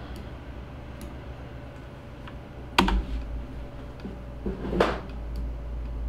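Computer mouse and desk clicks: a few faint ticks and two louder clicks, about three and about five seconds in.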